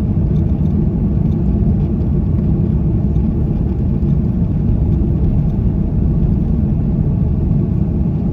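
Steady low rumble inside the cabin of an Airbus A330-300 airliner: the engines and airflow heard from a window seat, even throughout, with no distinct events.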